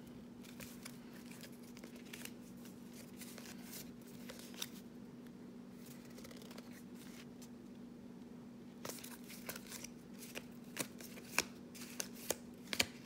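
Football trading cards being handled and flipped through one by one, with soft card clicks and slides. The clicks get busier and sharper over the last few seconds, over a faint steady low hum.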